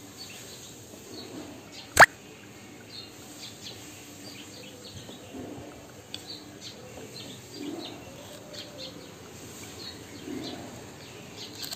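Small birds chirping faintly in the background, in short scattered calls, with one sharp click about two seconds in that is the loudest sound.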